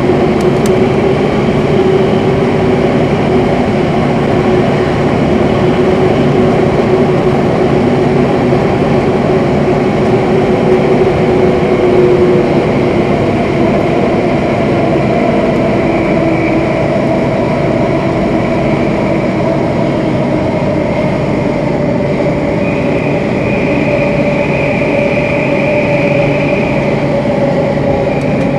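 Singapore MRT train running through a tunnel, heard from inside the carriage: a loud, steady rumble of wheels and tunnel noise. Over it ride whining tones that slowly shift in pitch, some fading out and others coming in.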